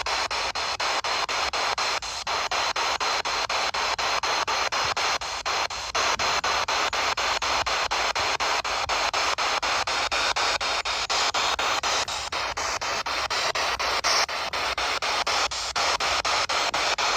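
PSB7 spirit box sweeping through radio frequencies: a steady hiss of radio static chopped by rapid, even clicks as it steps from station to station.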